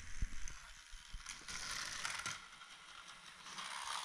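Small battery-powered light-up toy car whirring and rattling through its plastic gears as it is handled on a flexible plastic race track, with a few knocks against the floor near the start.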